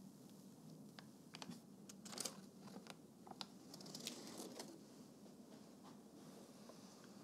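Faint, scattered light clicks and taps from a spatula and metal baking pan being handled, most of them between about one and five seconds in, over near silence.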